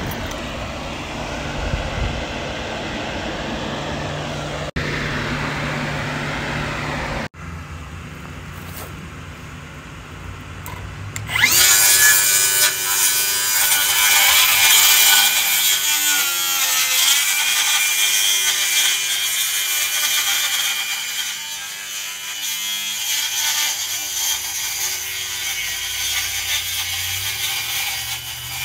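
A steady low hum breaks off abruptly about seven seconds in; about eleven seconds in a power saw starts up with a rising whine and cuts through a sheet of OSB, its pitch dipping briefly partway through the cut.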